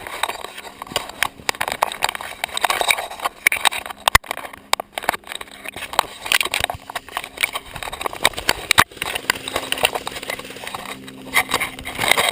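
Hurried footsteps with gear rattling and knocking against the body, in an irregular run of knocks, with two sharp clicks about four and nine seconds in.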